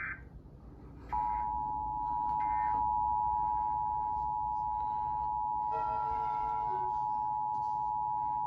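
Emergency Alert System attention signal: a steady two-tone sound (853 and 960 Hz together) coming in abruptly about a second in and held unchanged, marking the start of a required monthly test broadcast.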